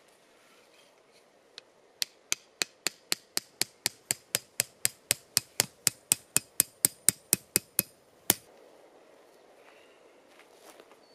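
Hatchet hammering an orange plastic tent peg into the ground: a quick, even run of about twenty sharp knocks, some four a second, then one last blow after a short pause.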